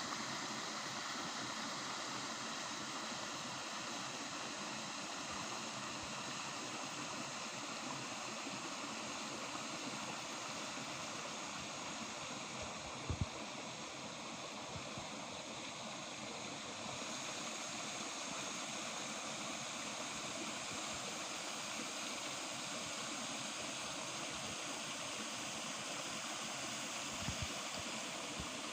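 Steady rushing of flowing water, like a stream, with a brief low thump about halfway through and a few more near the end.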